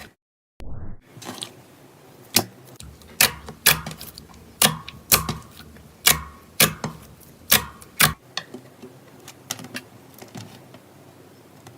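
Slime being squeezed and poked, giving a series of sharp clicking pops about two a second, which turn fainter after about eight seconds in. A brief dead gap comes just at the start.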